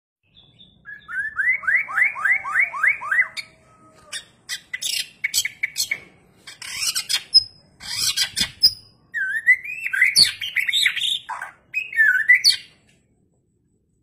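White-rumped shama (murai batu) singing loudly in varied song. It opens with a quick run of about eight rising whistled notes, goes into harsh, scratchy clicking phrases, and ends with looping clear whistles, then stops about a second before the end.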